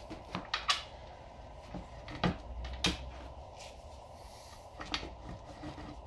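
Several sharp metallic clicks and knocks at irregular intervals, the loudest near the start and a couple of seconds in, as hand tools and the rear-wheel hardware of a motorcycle are handled during rear wheel removal.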